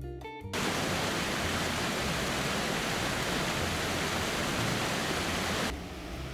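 Steady rushing noise of falling water, starting about half a second in after a bar of music and cutting off abruptly near the end, where quieter music comes back in.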